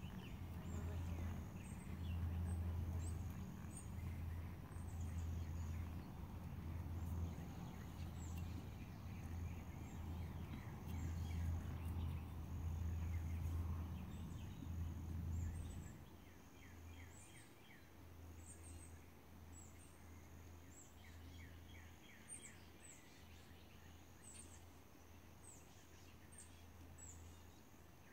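Outdoor ambience of birds calling over and over, with short high chirps and quick runs of notes. Under it is a low steady rumble that drops away a little past halfway.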